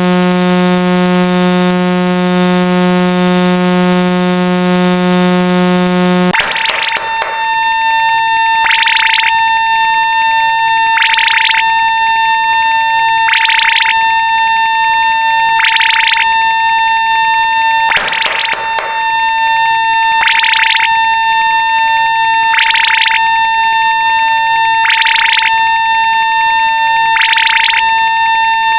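Loud synthetic electronic sound effects. A low, buzzer-like drone changes abruptly about six seconds in to a steady high alarm-like tone, with a pulsing beep about every two and a half seconds and a brief crash in the middle.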